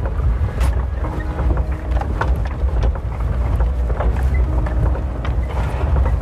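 Maruti Suzuki Gypsy 4x4 driving on a rough jungle track: a steady low engine and road rumble, with scattered knocks and rattles from the body.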